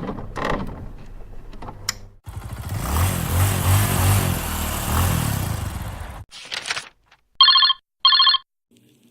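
A string of short sound effects: a few clicks over a low hum, then about four seconds of rushing noise and a short burst, ending in two short trilling telephone rings.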